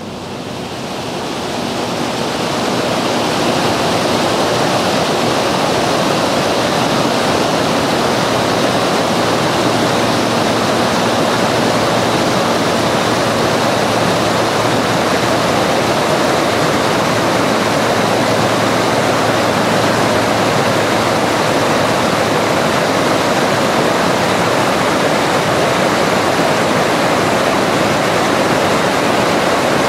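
Rushing creek water pouring over boulders and small cascades: a steady, loud roar of white water that fades in over the first three seconds.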